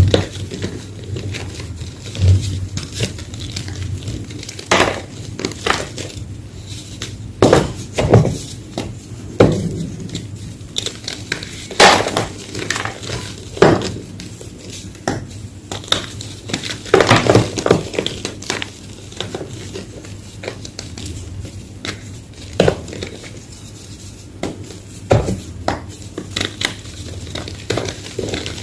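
Homemade gym chalk block being crushed: irregular sharp crunches and cracks every second or so, with fine crumbling crackle between them.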